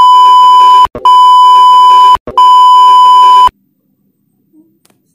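An electronic beep tone sounds three times, each a little over a second long with short gaps between, very loud and steady in pitch, and stops about three and a half seconds in.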